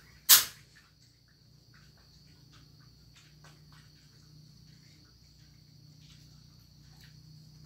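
One sharp, loud burst about a third of a second in. After it comes a steady high-pitched insect drone, with faint scattered ticks.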